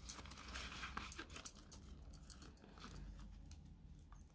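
Australian polymer banknotes being counted and pressed into a clear plastic binder pocket: soft rustling and crinkling with scattered small crackles and clicks.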